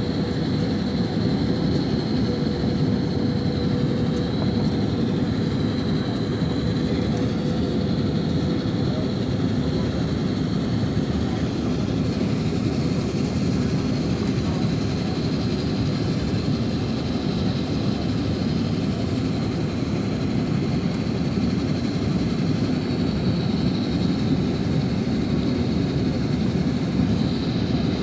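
Steady cabin noise of an Airbus A330-900neo descending on approach, heard from a window seat: an even, low roar of airflow and its Rolls-Royce Trent 7000 engines, with a faint steady high whine above it.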